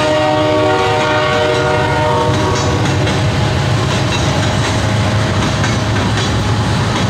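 Freight locomotive horn sounding a chord from the head end of the train, fading out in the first few seconds. Under it runs the steady rumble and clatter of loaded covered hopper cars rolling past close by.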